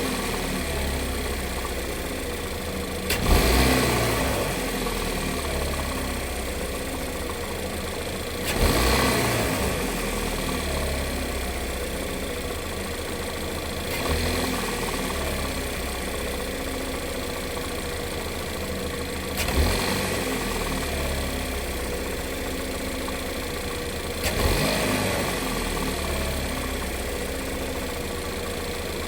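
Engine idling with a knock, revved briefly five times, about every five seconds, each time dropping back to idle. The knocking is the fault being shown.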